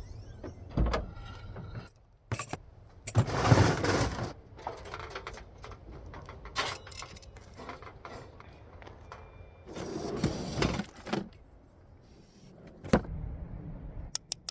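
Handling noise: scattered metallic clinks and knocks, with two longer rattling, rustling bursts about three seconds in and again about ten seconds in.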